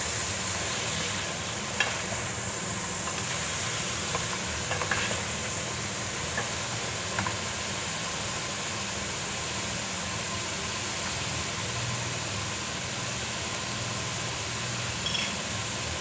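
Pork pieces sizzling in an aluminium pot as a wooden spoon stirs them, with a few light knocks of the spoon against the pot.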